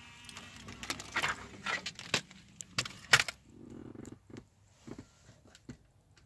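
Hands handling a CD and a JVC car stereo: a run of plastic clicks and sharp knocks, then a short low hum about halfway through, then a few lighter clicks as the stereo's controls are pressed.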